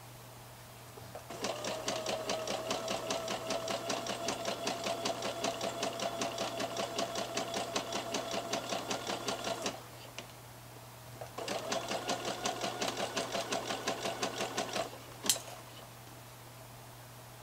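Electric domestic sewing machine stitching a seam in stretch jersey: a long run of fast, even stitching over its steady motor hum, a pause, then a shorter run, followed by a single sharp click.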